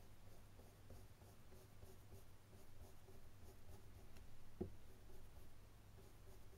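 Faint scratching of a paintbrush dabbing acrylic paint onto a painting panel in many small strokes, with one sharper tap about four and a half seconds in.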